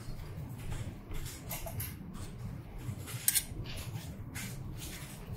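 Faint handling sounds of hands working on the printer's carriage: small clicks and light scrapes of fingers on cable connectors and metal parts, with one sharper click about three seconds in, over a low steady hum.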